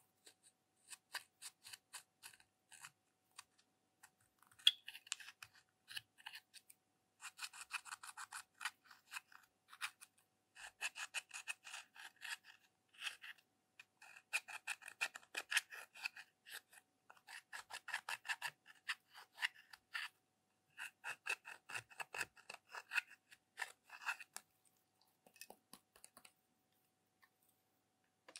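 Pressed eyeshadow being scraped and chipped out of its palette pans with a metal-tipped tool. The quick, rapid scratching strokes come in runs of a few seconds with short pauses, and thin out near the end.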